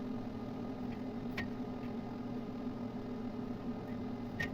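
A steady low machine hum, with two light clicks, one about a second and a half in and one near the end.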